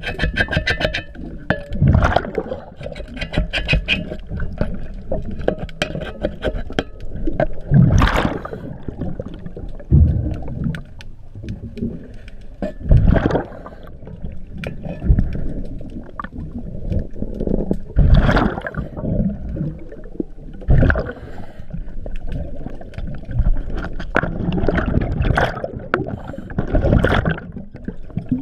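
Scuba diver breathing underwater through a regulator: exhaled bubbles gurgle and rumble past the camera in loud bursts every few seconds. A fast run of faint clicks comes in the first few seconds.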